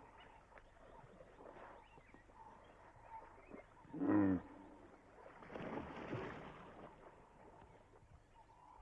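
A large wild animal's deep call: a short, loud, pitched grunt about four seconds in, followed by a weaker, longer call around six seconds.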